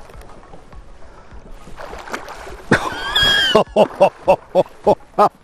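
A northern pike striking a lure right beside the boat: a loud splash about halfway through, with an excited shout over it, then a quick run of short excited yelps.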